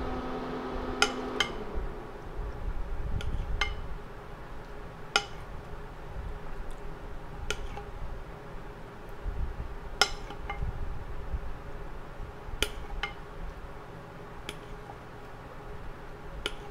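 Metal ladle clinking against a ceramic plate as sauce is spooned over steamed fish: a dozen or so light, irregularly spaced clinks. A low steady hum stops about a second and a half in.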